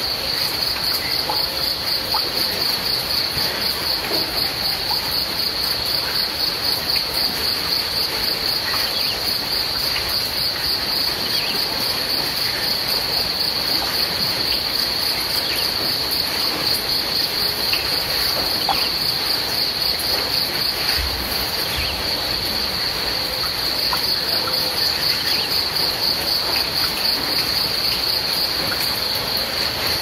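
Crickets chirping in a continuous high-pitched trill over a steady hiss, with scattered faint ticks.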